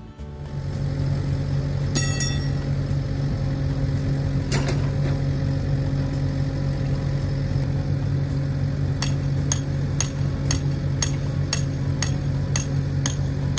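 Engine of a work machine running steadily at idle. About two seconds in there is a ringing metallic clink, and near the end come sharp knocks about twice a second.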